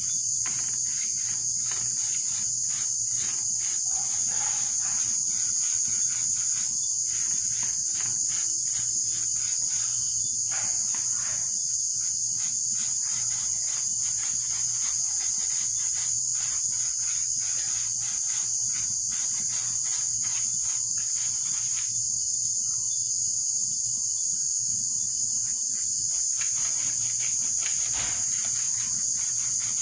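Steady high-pitched chorus of crickets chirping, with faint scattered clicks underneath.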